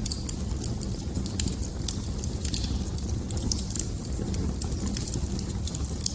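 Wood fire burning with a steady low rumble and frequent irregular crackles and pops.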